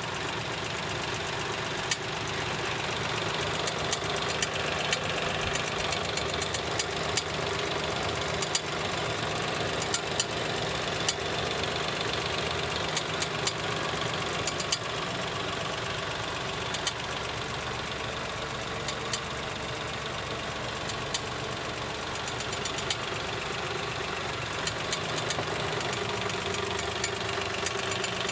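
Daewoo Matiz engine idling steadily, with a knock from underneath the car heard as short sharp clicks at irregular intervals throughout.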